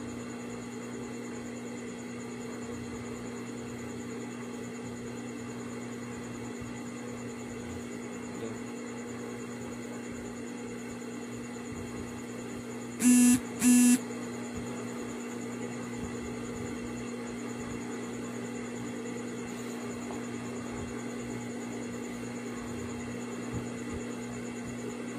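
Steady electrical hum with no rhythm of stitching in it. About halfway through come two short, loud beeps in quick succession.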